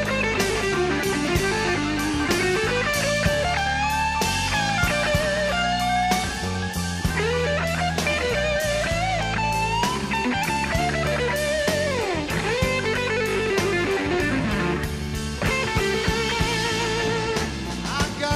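Rock music: a lead electric guitar plays gliding, bent notes over bass and a steady drum beat.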